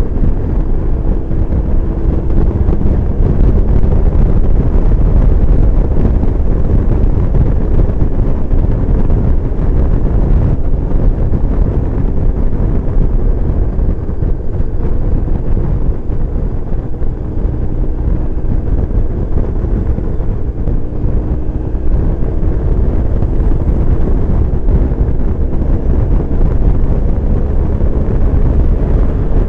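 Steady heavy wind noise rushing over the microphone of a BMW R1150GS motorcycle riding at highway speed, with the bike's boxer-twin engine running faintly beneath it.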